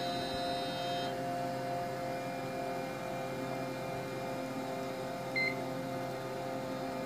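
VAXstation 3200 running with a steady hum of fans and power supply made of several constant tones. A faint high whine stops about a second in. About five seconds in comes a single short electronic beep, the loudest sound, as the machine's console comes up during its power-on self-test.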